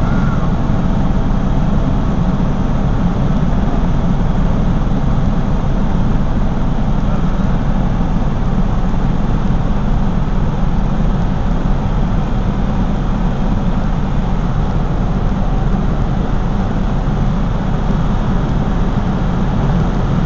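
Helicopter turbine engine and rotor heard from inside the cockpit: a loud, steady noise, heaviest in the low rumble, unchanging throughout.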